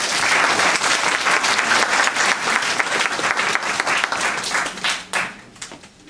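Audience applauding: a burst of dense clapping that starts all at once, holds for about five seconds, then dies away into a few scattered claps.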